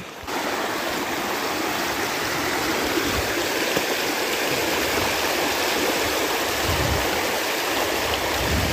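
Flowing stream water, a steady rush with a few soft low rumbles.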